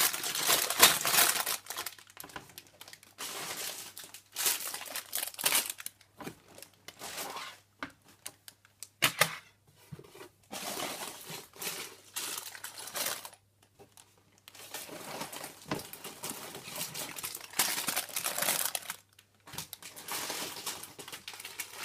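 Plastic bags of Lego pieces crinkling and rustling as they are handled and lifted out of the box, in irregular bursts with short pauses and a few sharp clicks.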